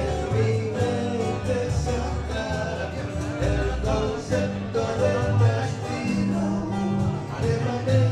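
A live band playing country music on strummed acoustic guitar and electric bass.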